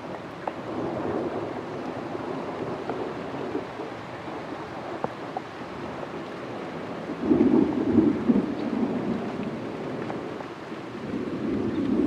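Distant thunder rumbling from cloud-to-ground lightning in nearby storms, swelling louder about seven seconds in and again near the end.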